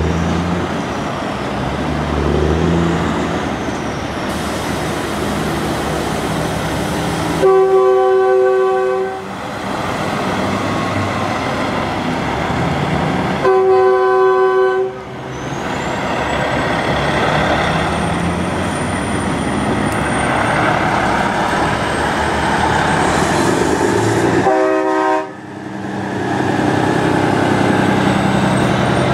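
Semi trucks driving past with their diesel engines running, while drivers blow truck-mounted train horns in three loud chord blasts, the last one shorter.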